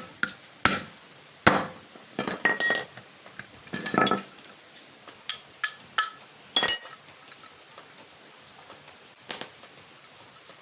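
Pieces of a broken motorcycle wheel bearing and other small metal parts clinking against metal as they are handled and set down: sharp ringing clinks in irregular clusters, the loudest about seven seconds in, then one more clink near the end.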